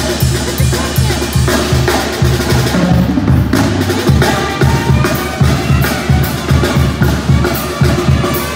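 A tamborazo band playing live: tambora bass drum and snare keeping a steady quick beat under brass and saxophone horns.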